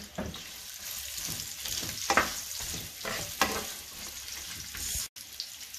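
Carrot sticks and chopped onion sizzling as they fry in olive oil in a nonstick frying pan, a steady hiss. A wooden spatula stirs them, with about three brief louder scrapes.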